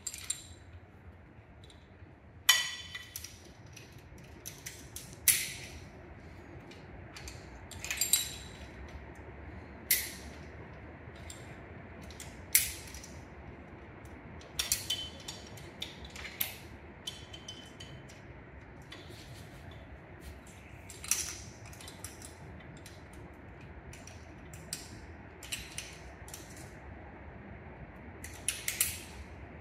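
Metal carabiners and rope pulleys clinking and clicking as they are handled and clipped into a rope hauling system: about a dozen sharp, short metallic clinks with a brief ring, a few seconds apart, the loudest about two and a half seconds in.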